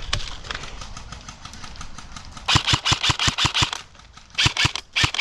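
M4-style airsoft electric rifle firing: a rapid burst of about ten shots over roughly a second, then a few short bursts of two or three shots.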